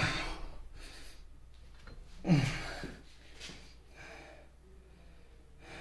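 A man breathing hard and grunting with effort: a sharp exhale at the start and a short grunt falling in pitch a little after two seconds in, with faint handling noise between, as he grips and twists a stuck shaft by hand.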